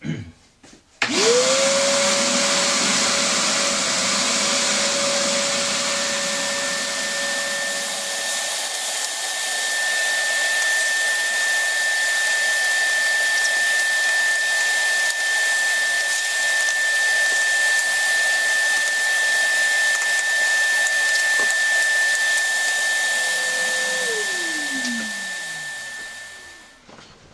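Vacuum cleaner switched on about a second in and sucking sawdust out of the base of a scroll saw. It runs noisy and steady with a high whine. Near the end it is switched off and the motor winds down, its pitch falling.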